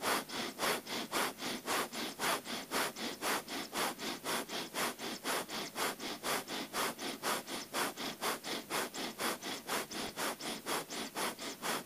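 Breath of fire (Kundalini yoga eldandning): rapid, even, forceful breaths in and out through the nose, about four strokes a second, like a tired dog panting with the mouth closed.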